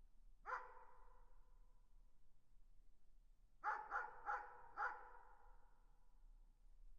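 A dog barking in the distance: one bark, then a quick run of four barks a few seconds later, each trailing off in a long echo.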